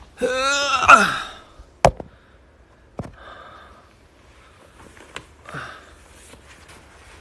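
A man's long, breathy voiced sigh, about a second long and falling in pitch at the end, followed by a sharp knock a little later and a lighter tap about a second after that.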